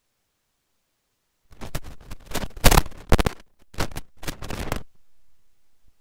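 Loud, irregular crackling noise on the cockpit audio feed, starting about a second and a half in and lasting about three seconds, after dead silence.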